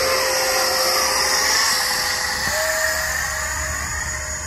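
E-flite F-16's 64 mm electric ducted fan running at full throttle as the jet climbs away after a hand launch: a loud, steady high whine that steps up slightly in pitch about halfway through, then slowly fades.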